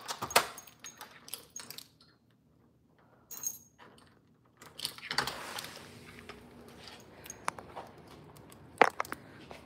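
Light clicks, knocks and jingles from a phone being handled while its holder moves about, with a steady hiss coming in about five seconds in and a sharper knock near the end.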